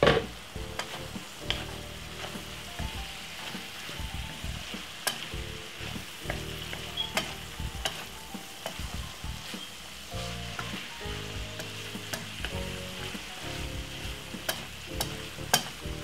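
Shredded cabbage and saltfish sizzling in a non-stick frying pan as a wooden spoon stirs and tosses it, with scattered clicks of the spoon against the pan and a sharp knock just at the start. Faint background music runs underneath.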